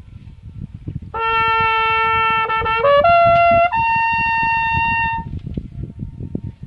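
Trumpet playing a held low note, a quick rising run, and then a high note held for about a second and a half. After the last note stops, it comes back faintly as an echo off the mountain walls.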